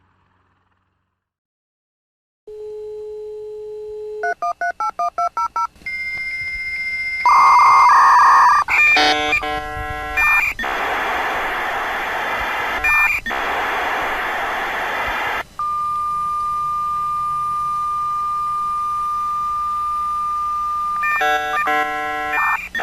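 Dial-up modem connecting to the internet: after a moment of silence a dial tone sounds, a quick run of about seven touch-tone digits is dialled, then an answer tone gives way to the screeching, hissing handshake as the modems negotiate the connection.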